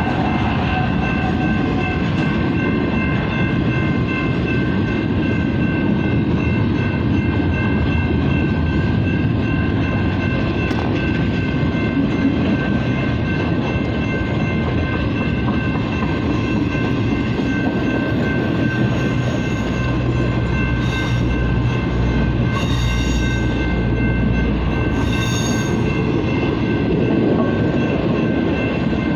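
BNSF double-stack freight train rolling past with a steady rumble of wheels on rail and a sustained high-pitched wheel squeal held throughout. The low rumble grows heavier about twenty seconds in, with a few short hisses.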